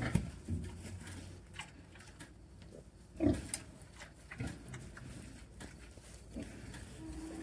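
Pigs grunting: a few short grunts spaced a second or more apart, the loudest about three seconds in.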